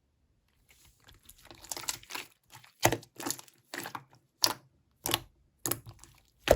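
Slime being squeezed and pressed by hand, making crackling, crinkly squishes that become a regular rhythm of about one and a half presses a second.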